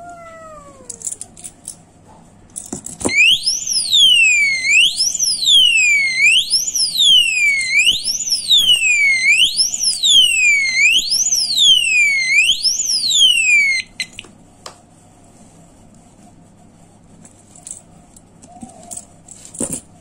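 Heavy-duty alarm padlock's built-in siren going off: a loud electronic wail sweeping up and down about every second and a half, for about ten seconds, then cutting off abruptly. A few faint clicks come before and after it.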